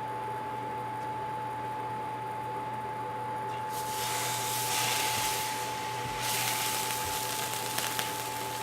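Salmon fillets sizzling in hot oil as they go into the pan: a loud hiss starts suddenly a few seconds in, dips briefly, then starts again as the second piece goes in, with a few pops near the end. A faint steady electrical whine and hum sit under it.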